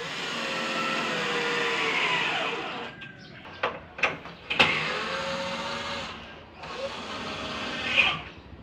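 Cordless drill driving screws into plywood, in three runs of a few seconds each, the motor's pitch dropping under load as each screw bites. A few sharp clicks come between the first and second runs.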